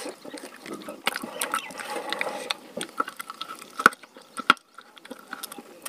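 Eating by hand from a stainless steel plate: chewing and mouth sounds, with fingers scraping and tapping on the steel. Scattered small clicks throughout, with two sharper ones in the second half.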